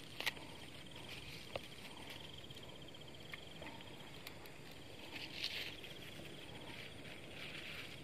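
Insect trilling: a rapid, even, high-pitched pulsed trill that stops about three seconds in and resumes about five seconds in. A sharp click about a quarter second in is the loudest sound.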